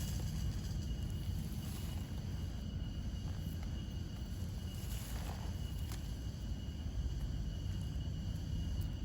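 Crickets trilling steadily in a continuous high pitch over a constant low rumble, with a couple of faint clicks about five and six seconds in.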